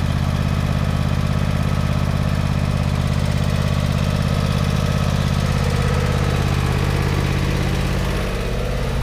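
A small gasoline engine idling steadily, with a slight dip in level near the end.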